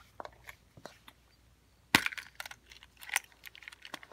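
An Altoids tin's hinged metal lid snaps open with a sharp click about two seconds in. Small clicks and rattles come before and after it as the tin and the kit items packed inside are handled.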